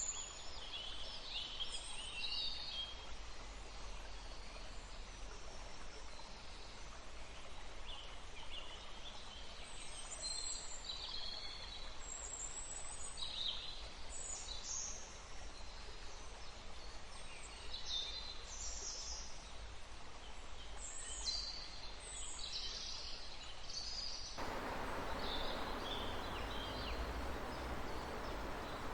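Forest birds chirping, many short high calls scattered over a steady background hiss. About 24 seconds in, the background changes abruptly to a louder rushing of running water.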